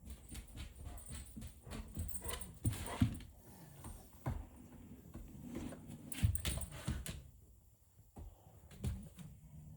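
A Maine coon cat snoring in its sleep: uneven snoring breaths, the loudest about three and six seconds in.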